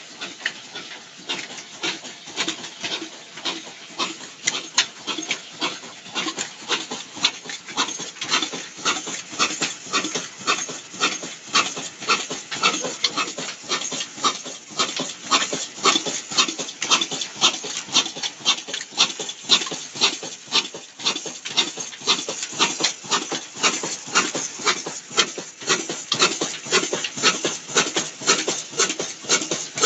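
Old Ruston Hornsby stationary diesel engine running at slow speed: a steady, even clatter of sharp knocks, a few a second, from its firing and valve gear, growing somewhat louder about eight seconds in.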